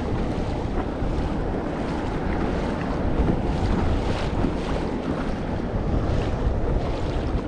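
Wind buffeting the microphone in a steady low rumble, with water splashing and slapping against a plastic Hobie fishing kayak's hull as it moves through choppy swell. The splashes come every second or so.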